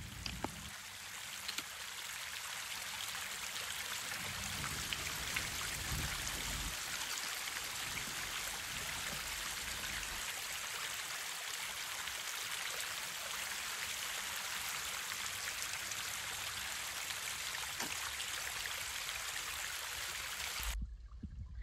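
Creek water running over rocks: a steady rushing hiss that cuts off abruptly near the end.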